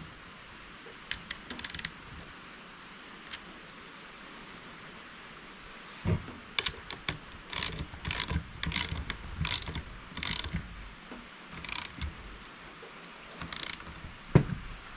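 Ratchet wrench clicking in short bursts as nuts are tightened down on bolts. There are a few strokes, a pause, then a steady run of about one stroke a second, and a single sharp knock near the end.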